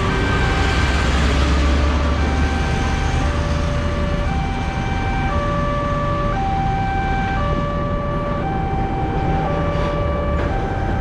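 Railway level-crossing warning alarm sounding as the barrier lowers: an electronic two-tone alarm, alternating high and low notes about once a second. Traffic noise runs underneath, with a truck's engine rumbling in the first couple of seconds.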